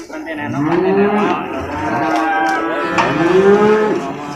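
Penned cattle and water buffalo calves mooing: two long calls that rise and then fall in pitch, the first starting about half a second in and the second about three seconds in, with other animals' calls overlapping.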